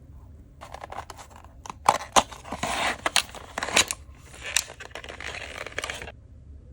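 Packaging of a 1:64 diecast model car being handled and opened by hand: a run of rustling broken by many sharp clicks and snaps, which stops about six seconds in.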